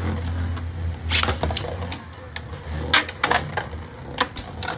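Two Beyblade Burst spinning tops whirring and clashing in a plastic stadium. A low hum in the first second gives way to irregular sharp clicks as the plastic tops knock into each other.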